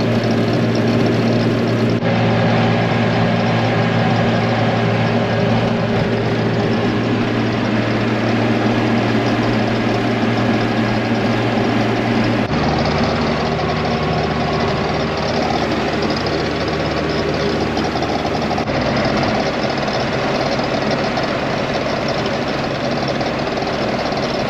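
Farm tractor engine running steadily while the tractor drives along. Its even note changes abruptly to a new steady pitch a few times.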